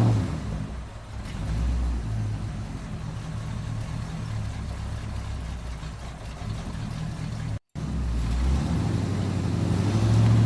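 Truck engine running with a steady low rumble whose pitch shifts a little, cutting out for a split second about three-quarters of the way through.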